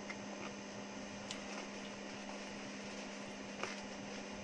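Steady low electrical hum with a few faint, sharp clicks from eating fried chicken off the bone, about a second in and again near the end.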